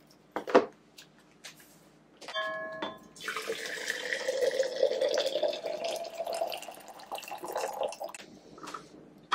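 A knock about half a second in and a short beep, then water poured from a kettle into an enamel drip kettle for about five seconds, the pitch rising slightly as it fills.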